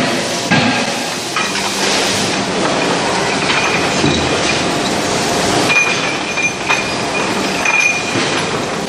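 Automatic feeding conveyor of an electric furnace running, a steady metallic rattle and clatter of its chain and steel billets, with a high squeal coming and going from the middle onward.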